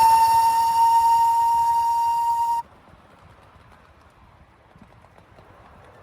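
Miniature railway locomotive whistle sounding one long, steady note. It cuts off abruptly about two and a half seconds in, leaving faint background noise.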